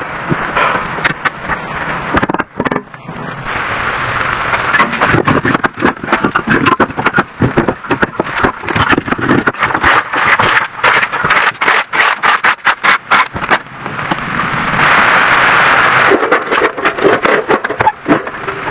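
Rapid irregular runs of sharp knocks and clatter, several a second, with a stretch of steady scraping noise about three quarters of the way through.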